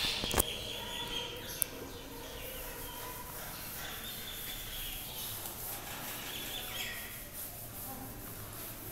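A chalkboard duster wiping a blackboard in quiet rubbing strokes, with two sharp knocks in the first two seconds.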